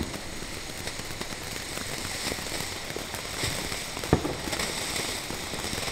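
Ground fountain firework spraying sparks, hissing and crackling steadily with many small pops. One sharper pop comes about four seconds in.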